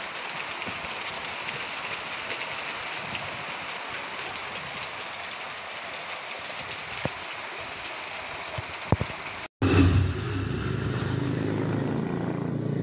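Steady hiss of rain falling, with a couple of sharp clicks near the end. It cuts off abruptly, and for the last few seconds a vehicle engine runs close by in a street.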